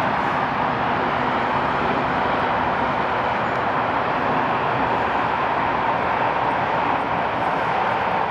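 Small RC model airplane's motor and propeller droning steadily in flight, the pitch wavering slightly.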